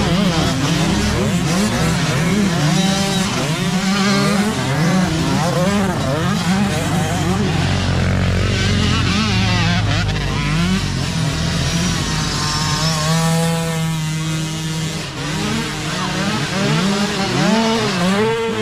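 Several mini dirt bike engines revving up and down as the small bikes ride past, their pitches rising and falling and overlapping. Partway through, one engine climbs steadily in pitch as it accelerates.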